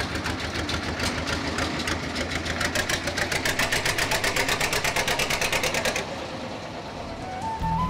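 Narrow-gauge BN30 diesel locomotive chugging with a fast, even exhaust beat as it pulls away with its passenger wagons. The beat drops away about six seconds in, and music begins near the end.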